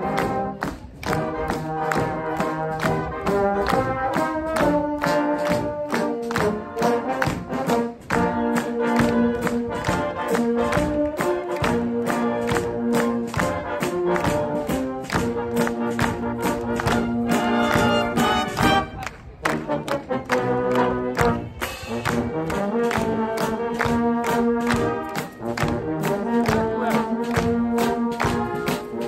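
Brass marching band playing a march: trumpets, trombones and tubas in full chords over a steady drum beat, with a brief drop in the music about two-thirds of the way through.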